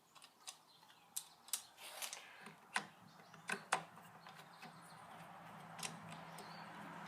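Scattered light clicks and knocks as the knobs on a featherboard are loosened and it is handled to fit into a router table fence track, over a faint low hum that grows louder in the second half.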